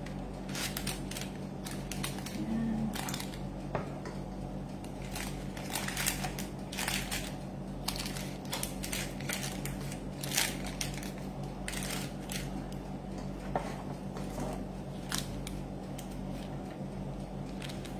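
Baking paper crinkling and rustling in short, irregular crackles as it is pressed into cup-shaped liners in a baking tray, over a steady low hum.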